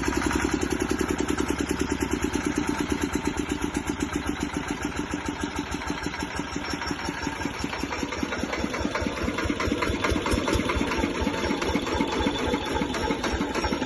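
Diesel engine of a 12.5 kVA Bajaj generator set running steadily, with a fast, even firing beat. About halfway through, the beat becomes more spaced and distinct.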